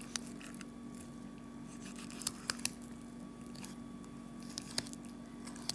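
A knife cutting and scraping raw rabbit meat off the backbone: scattered soft clicks and wet squishing as the blade works along the bones. A steady low hum runs underneath.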